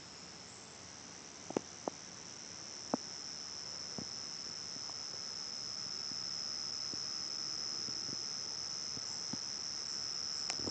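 A steady, high-pitched drone of insects calling in the trees, slowly growing louder, with a few faint clicks in the first few seconds.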